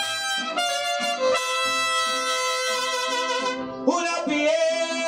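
Mariachi band playing an instrumental passage, trumpets to the fore over violins and guitars. A long chord is held from about a second and a half in, and a new phrase comes in about four seconds in.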